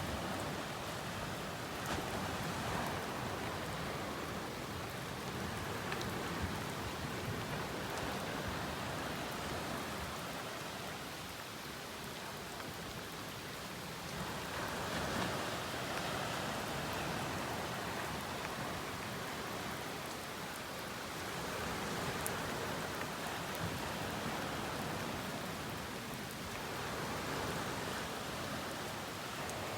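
Rain falling steadily, an even hiss that swells and eases a little every several seconds, with a few faint drop ticks.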